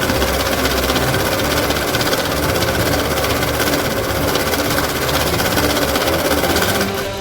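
CDM 2500S banknote counting machine running through a stack of notes: a steady, very fast mechanical riffling that stops near the end.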